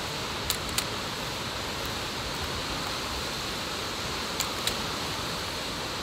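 Steady rushing hiss of whitewater running over the rocks of a river just above a waterfall. Two pairs of small clicks, one early and one past the middle.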